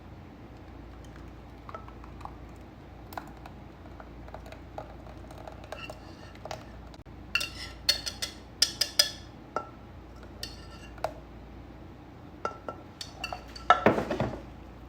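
Kitchen utensils clinking and knocking against pots and dishes: scattered taps, a run of sharp clinks about halfway through, and a louder clatter near the end.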